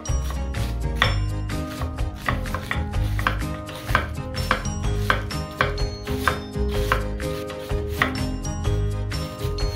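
Chef's knife slicing onion and then shredding cabbage on a wooden cutting board: a steady run of crisp knife strokes knocking on the board, about two to three a second.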